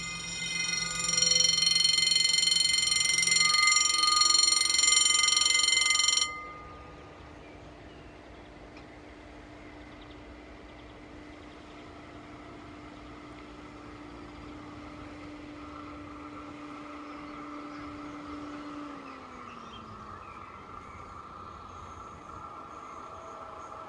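Electronic warning bell of a French level crossing ringing loudly and steadily, cutting off suddenly about six seconds in. After it the sound is much quieter, with only faint steady tones.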